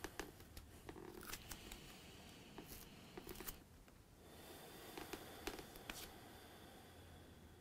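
Near silence: quiet room tone with a few faint rustles and small clicks scattered through it.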